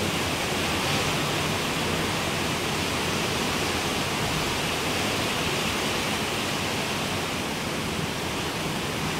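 Steady rush of strong storm wind, buffeting the microphone with an uneven low rumble.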